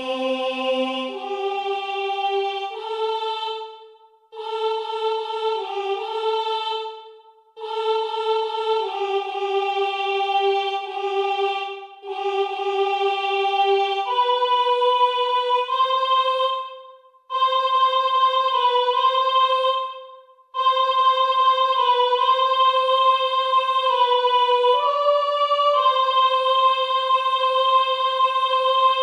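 The soprano part of a choir hymn arrangement, sounding alone: a single high voice-like melody in held notes, sung in short phrases with brief breaks between them. It ends on a long held final note.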